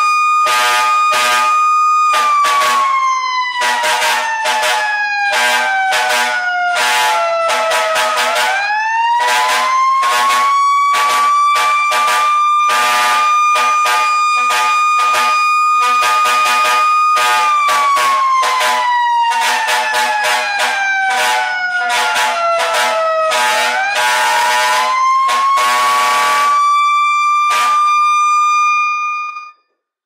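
A siren wailing: it holds a high note, slides slowly down for about six seconds, then sweeps quickly back up and holds, and does this twice. A horn sounds over it in rapid short blasts, and both cut off suddenly shortly before the end.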